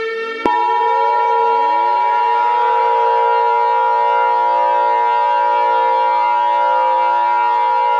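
Warning siren winding up, several pitches rising over the first few seconds and then holding steady, layered with a steady electronic alert tone that starts with a click about half a second in: the alarm sounds of a mock Emergency Alert System tornado warning.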